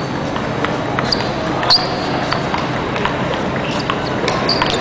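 Hardbat table-tennis rally: the ball clicking off sponge-less pimpled paddles and bouncing on the table, a sharp irregular tick every half second or so, some with a brief high ring, over the steady hum of a large hall.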